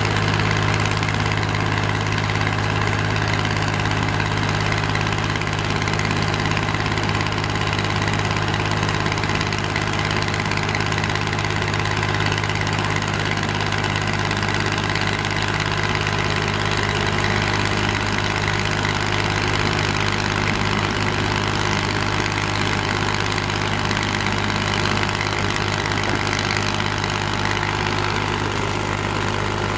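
Komatsu PC210 hydraulic excavator's diesel engine running at a steady speed, together with a soil screening plant and its conveyor running continuously as soil is screened.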